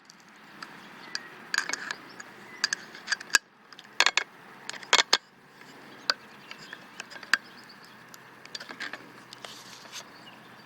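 Scattered sharp metallic clicks and clinks as a grinding wheel and its retaining nut are fitted onto a cordless angle grinder's spindle with the spindle lock held. The clicks come thickest in the first half.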